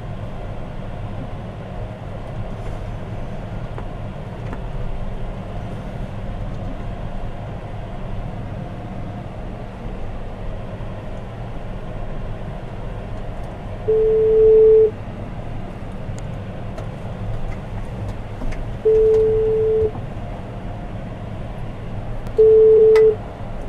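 John Deere 6215R tractor's six-cylinder diesel running steadily, heard from inside the cab while ploughing. Over it, a phone's ringback tone plays through the tractor's speakers: three one-second beeps a few seconds apart, the last cut short as the call is answered.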